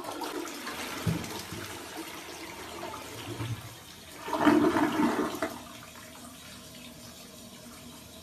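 Toilet flushing: a sudden rush of water swirling down the bowl, with a soft thump about a second in. The rush surges loudest about four and a half seconds in, then settles to a steadier, quieter flow.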